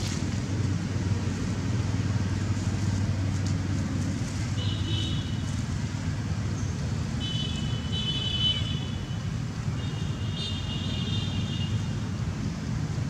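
Steady low outdoor rumble like distant traffic. Three spells of a high, steady whistling tone stand out over it, about four and a half, seven and ten seconds in, each lasting one to one and a half seconds.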